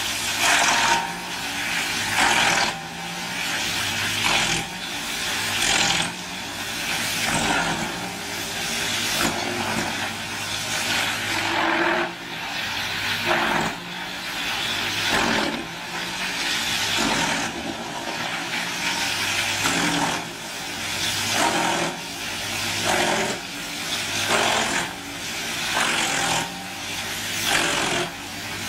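Large wood chipper or tree shredder running, its engine drone overlaid by repeated loud bursts of grinding and crunching as wood goes through, about one every one to two seconds.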